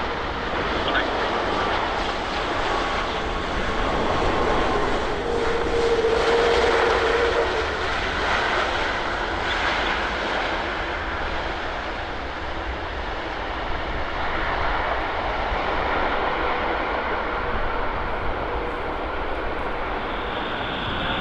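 Jet airliner engines running as an Air Transat Airbus A330-243, with Rolls-Royce Trent 700 turbofans, comes in to land: a steady rush, swelling slightly a few seconds in, with a brief steady hum around the loudest part.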